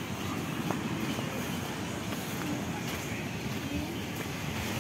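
Steady low rumble of surf breaking on the beach, with faint distant voices near the end.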